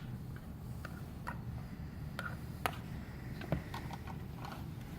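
Irregular light clicks and taps, roughly one or two a second, over a steady low hum.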